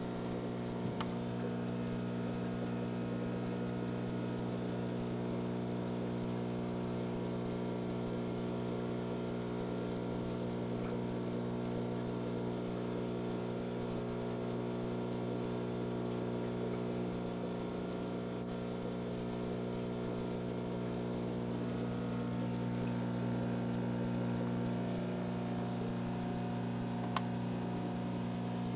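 Aquarium filter running: a steady hum with trickling, pattering water, and two faint clicks, one about a second in and one near the end.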